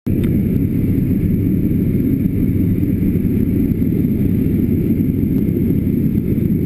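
Light propeller aircraft's engine and airflow heard inside the cockpit in flight: a loud, steady, low drone with no change in pitch.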